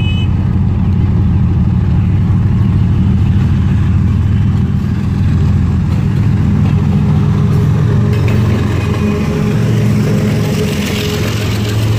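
Diesel-electric locomotive of an express train, a GE (GEU class), running loud and deep as it approaches and passes at close range. Its engine note drops in pitch about nine and a half seconds in as it goes by, and a hiss of coach wheels on the rails builds near the end.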